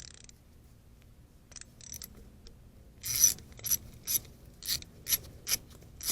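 Hand socket ratchet with a 10 mm socket working a bolt in short strokes. The quick pawl clicks start about three seconds in and repeat about twice a second.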